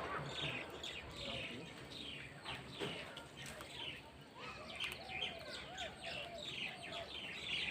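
Birds chirping: a busy run of many short, high, falling calls overlapping one another.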